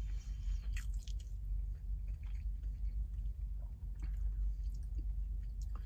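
A man chewing a mouthful of soft tortilla wrap filled with egg and hash brown, with small wet smacks and clicks of the mouth, over a steady low hum inside a car's cabin.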